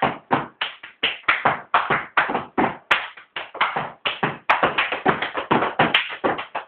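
Hand claps in a quick, slightly uneven rhythm, about four to five a second, with a short ring in a small room.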